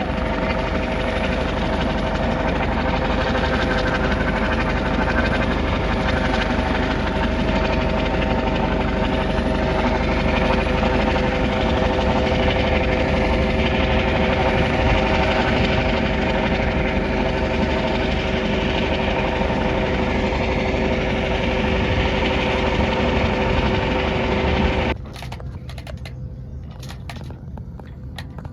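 Coast Guard helicopter hovering, a loud steady drone with several steady tones in it. It drops away abruptly about 25 seconds in, leaving quieter sound with a few clicks.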